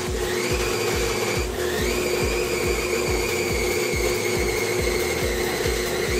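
Electric stand mixer running, with a steady motor hum and a high whine that dips and climbs back twice in the first couple of seconds. A regular low thump comes about three times a second throughout.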